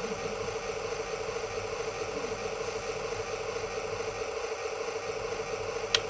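Heng Long RC tank smoke unit with a 12 V 30 mm fan in place of its pump motor, running steadily: a whir with an even flutter in its hum. A single sharp click near the end.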